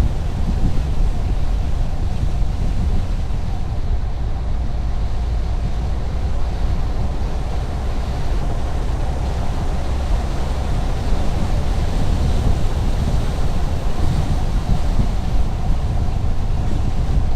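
A car driving steadily on a highway: continuous low road and engine rumble, with no changes or impacts.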